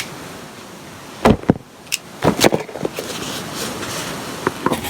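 A few sharp knocks and thumps with some rustling, as things in a room are handled and moved.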